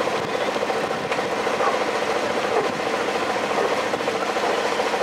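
Bicycles rolling along in a group ride, heard from a moving bike: a steady rush with a fast, even mechanical ticking.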